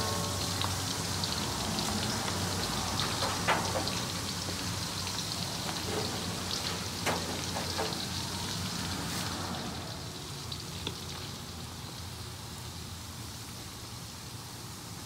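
Oil sizzling and crackling steadily in a wok as shredded smoked skipjack tuna (cakalang fufu) deep-fries, with a few sharp clicks along the way; the sizzle grows somewhat quieter about two-thirds of the way through.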